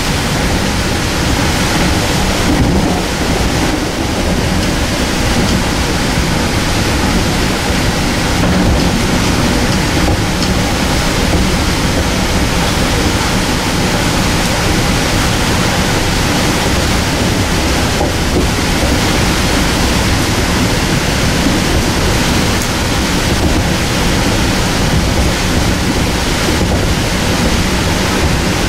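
Steady running noise inside a moving Metro-North M2 electric railcar: a continuous low rumble of wheels on rail and the car's running gear.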